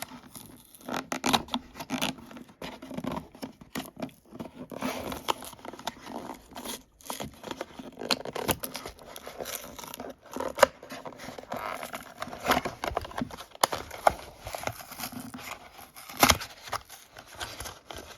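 A die-cast toy car being taken out of its blister-card package: plastic crinkling, tearing and scraping in irregular rustles, with sharp snaps and clicks.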